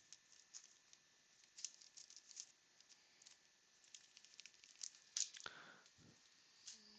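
Faint rustling and light taps of baseball trading cards and pack wrappers being handled, in scattered soft ticks.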